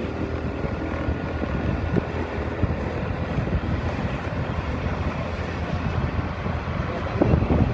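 Wind rumbling on the microphone as it moves along, over a steady low vehicle hum; a few heavier gusts or bumps near the end.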